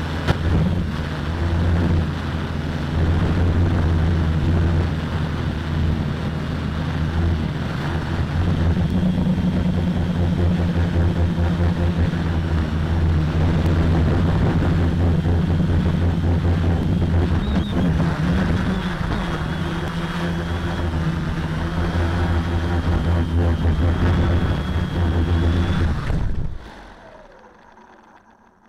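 Quadcopter electric motors and propellers running, a steady hum picked up by the drone's own onboard camera. The motors stop suddenly about 26 seconds in, once the quadcopter has landed.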